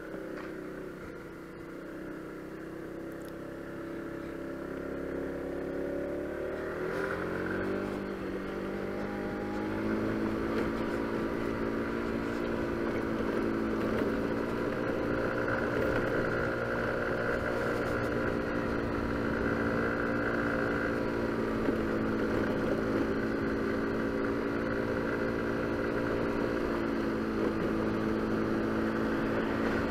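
Motor scooter engine under way: its note dips, climbs in pitch as it accelerates, then holds a steady cruising drone.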